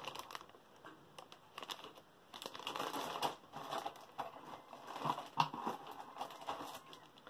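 Clear plastic bags holding the parts sprues of a 1:32 scale plastic aircraft model kit crinkling and rustling as they are handled, in irregular bursts with small sharp crackles.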